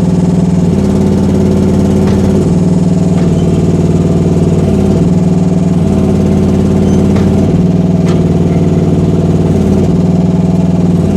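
Gasoline engine of a Rippa R10 mini excavator running steadily, its note shifting under load every couple of seconds as the hydraulics are worked, with a few faint clicks.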